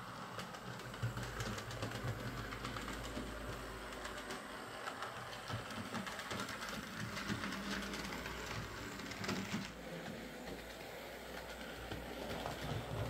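Hornby OO gauge Class A4 'Mallard' model steam locomotive running on the layout track, a steady mechanical running noise from its motor and wheels with a fast patter of light clicks. It has just been serviced, with the tender wheels de-fluffed, cleaned and oiled.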